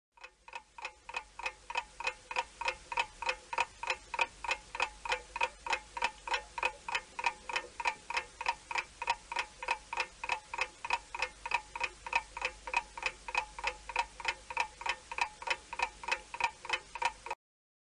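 Clock ticking steadily, about three ticks a second. It fades in over the first couple of seconds and cuts off suddenly near the end.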